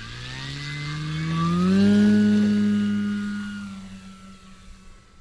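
Electric motor and propeller of a large 3D-printed RC plane on an 8S battery, throttled up for takeoff. It rises in pitch over the first two seconds, is loudest about two seconds in, then fades away.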